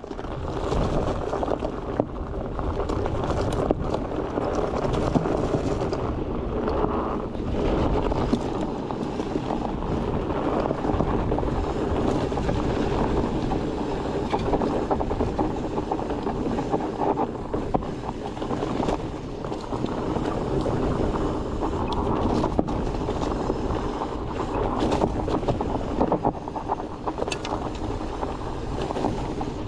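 Mountain bike rolling down a dirt trail: a steady rumble of knobby tyres on dirt and wind buffeting the microphone, with scattered clicks and rattles from the bike.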